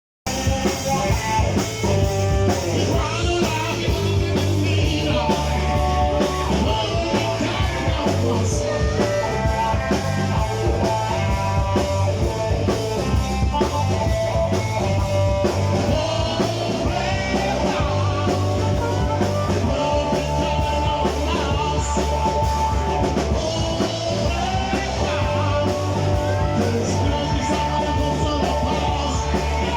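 Rock-blues band music with drum kit, bass and electric guitar playing steadily.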